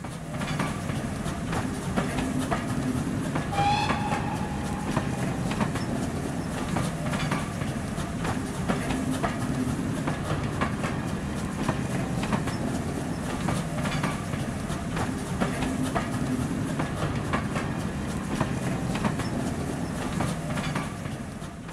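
A train rolling along its track with a steady rumble and the clickety-clack of wheels over rail joints. A brief whistle-like tone sounds about four seconds in.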